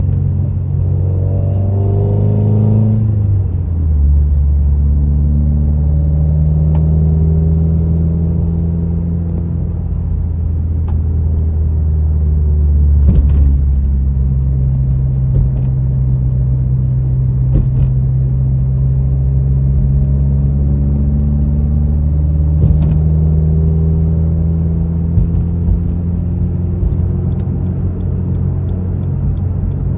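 Subaru WRX's turbocharged flat-four engine running under way, heard from the driver's seat. Its pitch drops sharply about three seconds in and climbs then drops again about two-thirds of the way through, with a few brief clicks along the way.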